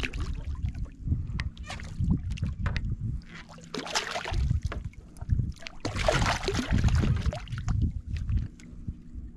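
Waves slapping against a small fishing boat's hull in irregular low thumps and knocks, with two longer hissing rushes about four seconds in and again around six to seven seconds.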